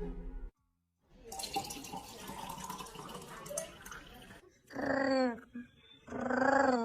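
Running water for a few seconds, then a cat meowing twice, each a drawn-out call that rises and falls.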